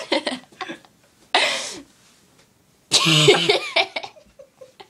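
A girl coughing: a short cough about a second in, then a louder, voiced cough about three seconds in.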